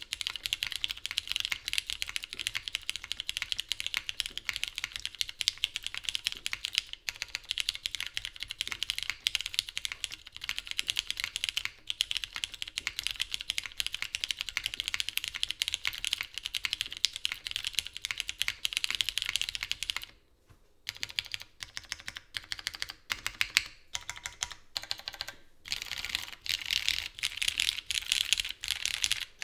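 Typing on a Matrix 8xv3.0 custom mechanical keyboard with lubed Cherry MX Brown switches, GMK keycaps and a polycarbonate top-mount plate with no dampening foam. The keystrokes come fast and continuous, then after about twenty seconds break into short separate bursts with brief pauses, and pick up fast again near the end.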